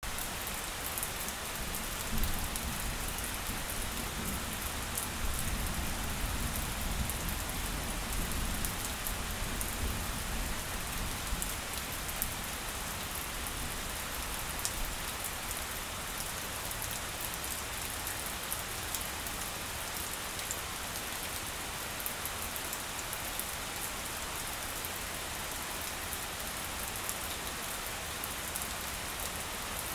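Steady rain falling on grass, with individual drops hitting close by. A low rumble underlies the first nine seconds or so, then fades.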